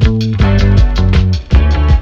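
Background music: a funk-style track with a steady beat, bass and guitar.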